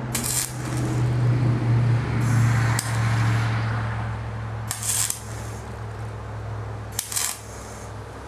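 Arc welding: the welder's steady electric buzz with crackling from the arc, strongest over the first few seconds and then fading, with short sharp crackles about five and seven seconds in. The weld joins thin manifold tubing to a thick flange.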